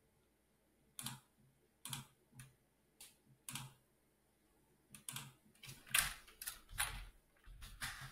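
Computer keyboard and mouse clicking: a few single clicks spaced about half a second to a second apart, then a quick run of typed keystrokes in the last three seconds.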